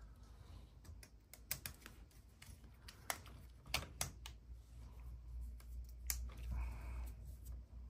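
Scattered small, sharp clicks and taps of a screwdriver working the screw terminals and wires of a wall socket, irregular and faint.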